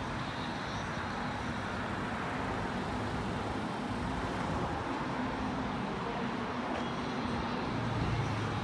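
Steady road traffic noise from passing vehicles, with a low hum underneath that gets a little stronger near the end.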